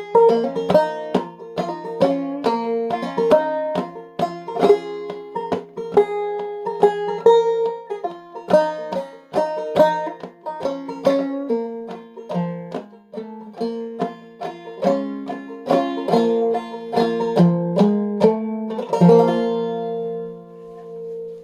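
Clawhammer banjo in sawmill tuning, capoed at the third fret, picking a tune in 3/4 time over a steady repeated high note. It ends on a final chord about 19 seconds in that rings out and fades.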